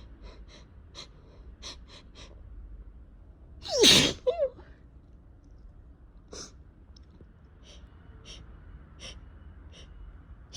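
A person sneezing once, loudly and suddenly, about four seconds in: a spring allergy sneeze whose voiced 'choo' falls in pitch, followed by a short vocal note. Faint short clicks are scattered before and after it.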